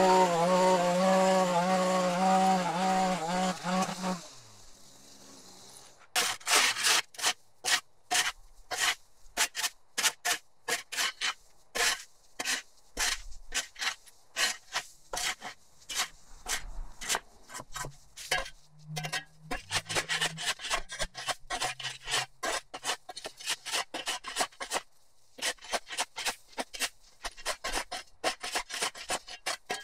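A gas-powered lawn trimmer's engine runs and winds down about four seconds in. After a short pause, a shovel blade scrapes across a concrete sidewalk again and again, about one or two strokes a second, clearing cut edging debris.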